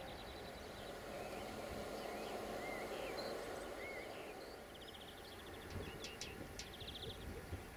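Small birds chirping, with short rising and falling notes and a couple of rapid trills, over a steady background hum of outdoor noise.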